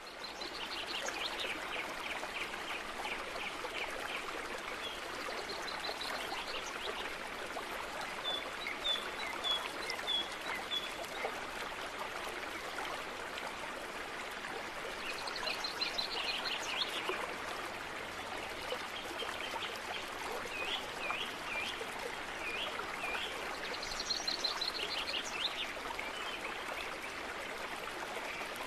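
Flowing water, like a running stream, with birds chirping over it: bursts of rapid trills every several seconds and a short run of falling whistled notes about a third of the way in.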